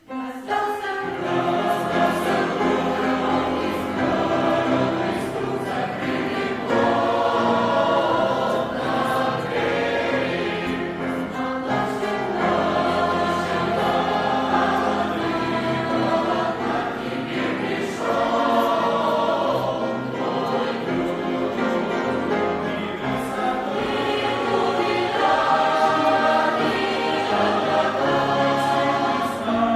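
A church youth choir singing a Christian hymn in several voice parts, starting right at the beginning and carrying on steadily.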